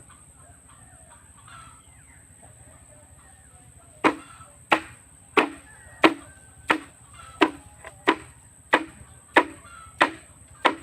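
Steady chopping: about eleven sharp strikes, roughly one and a half a second, starting about four seconds in, each with a short ring. Faint chirping calls come before the chopping starts.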